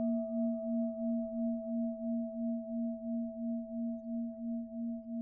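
The ring of a struck bell-like metal tone, a few pure notes held together and fading very slowly, with a steady wavering pulse about three or four times a second.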